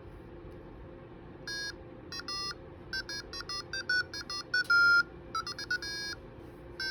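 A door alarm's electronic buzzer sounding a rapid, irregular run of short beeps at slightly differing pitches. The beeps start about a second and a half in, with one longer, louder tone near the middle. A faint steady hum runs underneath.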